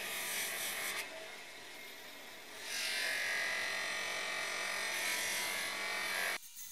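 Sealey 200 mm bench grinder running with a polishing wheel. A bar of cutting and finishing compound is pressed on the spinning wheel with a loud hiss for the first second, then the motor runs on its own more quietly. From nearly three seconds in, the steel frame of the wrench is pressed on the wheel with a loud rubbing hiss that stops abruptly near the end.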